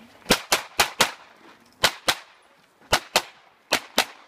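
Tanfoglio pistol fired rapidly in an IPSC course of fire: ten sharp shots in quick pairs, four in the first second, then a pair about every second.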